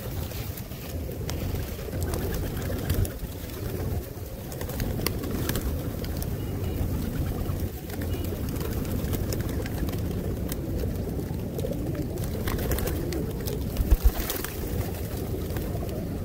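A flock of feral pigeons cooing steadily at close range, with scattered sharp clicks of beaks pecking seed on concrete and the flutter of wings. A couple of loud low thumps come near the end.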